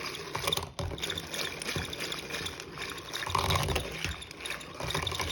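Hand-cranked rotary egg beater churning liquid pie batter (sugar, eggs, buttermilk, melted butter) in a bowl, the batter sloshing while the beater's gears squeak.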